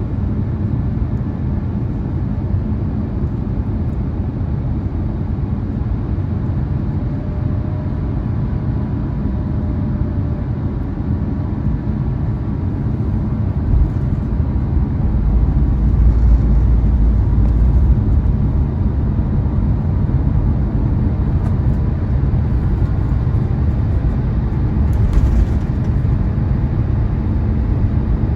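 Cabin noise inside an Airbus A350-1000 airliner on approach: a steady rumble of airflow and its Rolls-Royce Trent XWB-97 engines, with the deep rumble swelling for a few seconds about halfway through.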